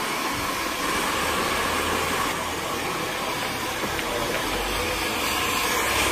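Hand-held hair dryer running steadily, a continuous blowing rush of air with a low motor hum underneath.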